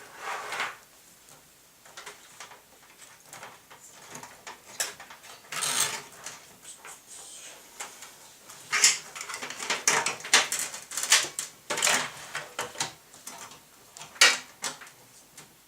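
Irregular clicks, knocks and scraping from a cable being routed and plugged in inside a computer case, with a longer rustling scrape about six seconds in and a run of sharper clicks in the second half.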